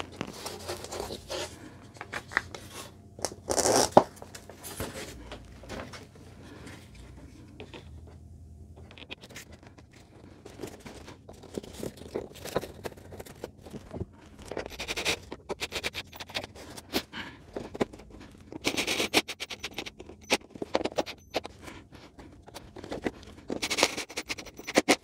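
Hands handling screws, a PVC strip and foam board: scattered scrapes, taps and clicks, with a sharp knock about four seconds in. Near the end a cordless drill briefly drives a screw through the PVC strip into the backdrop.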